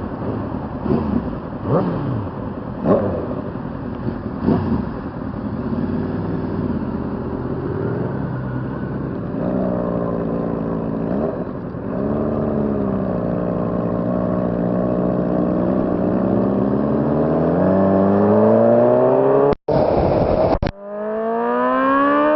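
Honda CBR600RR inline-four engine: a few short throttle blips, then running and accelerating with its pitch rising steadily. The sound briefly cuts out near the end, then another rising pull begins.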